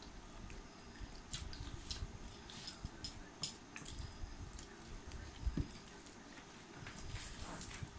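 Scattered small clicks and handling sounds of eating rice and fish curry with the fingers from steel plates, with a soft knock a little over halfway through as a bowl is set on the wooden table.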